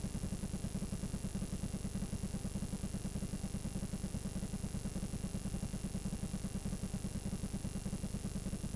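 Low, rapidly pulsing buzz with a faint steady high whine, heard over the static at the blank end of a VHS home recording; it cuts off suddenly at the end.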